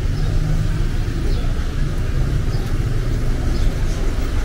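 Steady rumble of street traffic, car engines and tyres on the road, with a few faint high chirps over it.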